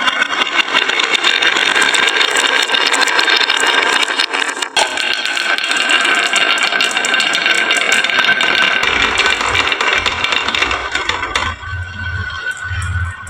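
Many marbles rolling and clattering down a wooden HABA marble run, a dense run of rapid clicks and rattles that thins out about eleven seconds in, with low thumps near the end.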